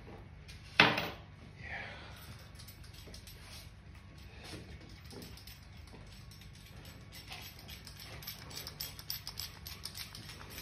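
Handling noise: a single sharp knock about a second in, then small quick clicks and rustles near the end.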